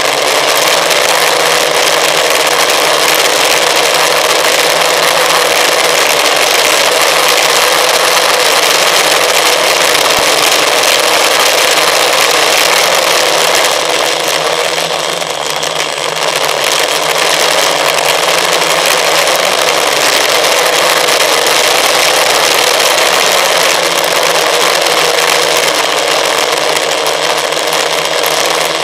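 Electric motors and propellers of an FPV drone heard close through its onboard camera's microphone: a loud, steady dense buzz with faint whining tones, dipping briefly about halfway through.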